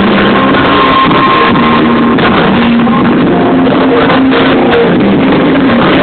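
A live rock band playing through the PA, guitars and drums, heard loud from within the concert crowd.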